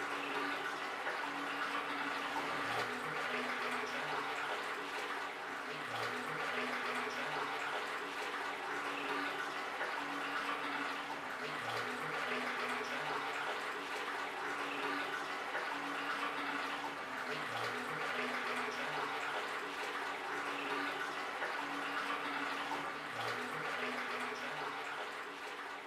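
Water running steadily from a tap, a continuous rush, with a low repeating tone pattern underneath every few seconds.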